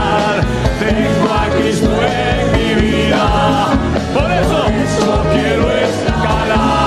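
Several voices singing a Spanish-language Pentecostal worship chorus together, backed by a live band with drums keeping a steady beat.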